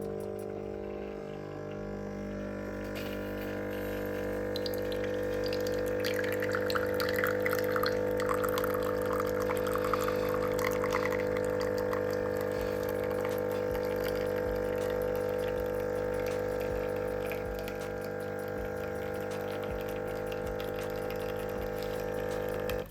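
Jura ONO coffee machine's pump humming steadily as it brews an espresso, with a stretch of gurgling, splashing liquid from about six to eleven seconds in; the hum then stops suddenly.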